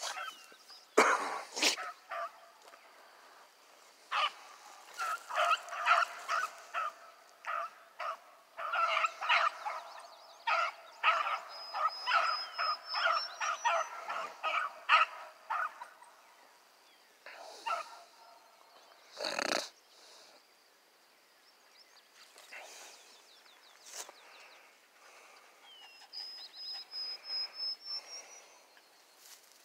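Hounds trailing a rabbit, giving a long run of quick, repeated barks for about twelve seconds, then only a few scattered barks. A sharp knock comes near the middle.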